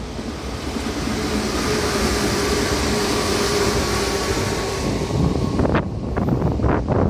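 Meitetsu red electric train, a limited express, running past on the adjacent track: the rush of wheels on rail grows louder with a steady motor whine over it, then cuts off suddenly just before six seconds in as the train clears.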